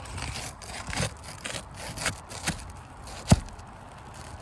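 Scraping and crackling of an asphalt shingle being pried and worked loose from its nails, with a few sharp knocks, the loudest about three seconds in.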